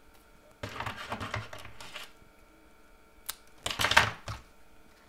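Satin ribbon and small crafting tools being handled on a plastic cutting mat: two spells of rustling and clicking, the louder one about four seconds in.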